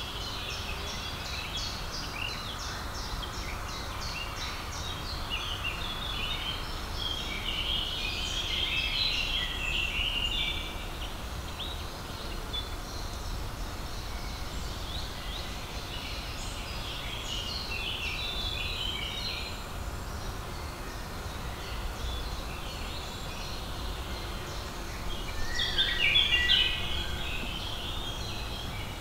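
Songbirds singing and calling over a steady low background rumble, in bursts of quick chirps and trills, with a louder burst near the end.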